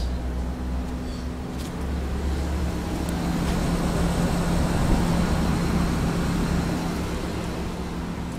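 2009 Mitsubishi Electric City Multi 5-ton air conditioner outdoor unit running: a steady hum from the compressor under the rush of the condenser fan, kind of loud, swelling a little midway.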